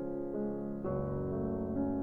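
Background piano music, a new note or chord sounding about every half second.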